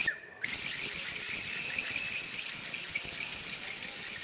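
Gauge 1 live-steam model locomotive venting steam: a loud hiss with a high, wavering squeal. It cuts off sharply right at the start, comes back about half a second in, and runs on steadily.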